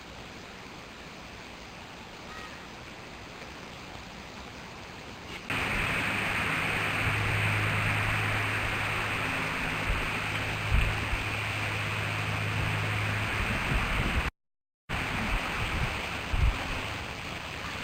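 Steady rushing outdoor noise on the eagle-nest camera's microphone, like wind, that gets suddenly louder about five seconds in. A low hum runs under it for several seconds, and the sound cuts out completely for a moment about three-quarters of the way through.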